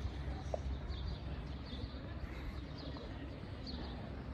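Outdoor ambience of a quiet town square: a steady low rumble, with faint short high sounds recurring about once a second.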